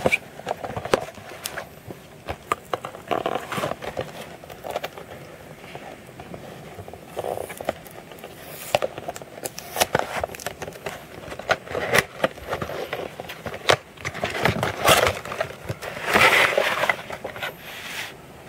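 Cardboard toy box and its plastic packaging being opened and handled by hand: scattered clicks, scrapes and crinkling, with the loudest rustling and scraping about fourteen to seventeen seconds in.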